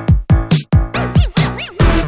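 Electronic dance music: a heavy kick drum beat under a synth melody that swoops up and down in pitch.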